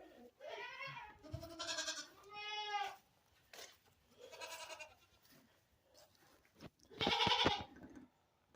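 Goats bleating: about five separate calls, each under a second, the loudest near the end.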